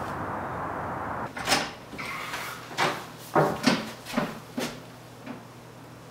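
Steady outdoor background noise for about the first second, then a run of sharp clicks, knocks and clunks over about three seconds: a door being opened and closed, latch and handle included.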